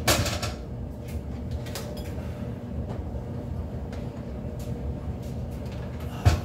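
Electric stand mixer running with a steady hum, with a sharp knock at the start and another near the end.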